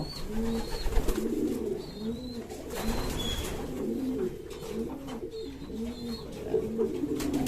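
Racing pigeons cooing, a run of low repeated coos about one to two a second.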